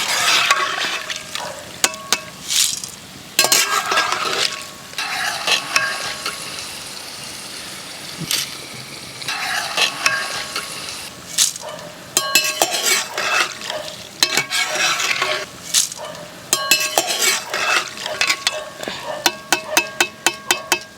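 Jackfruit pieces deep-frying and sizzling in hot coconut oil. A metal ladle stirs and scoops them, scraping and clinking against the pan, with a quick run of clinks near the end.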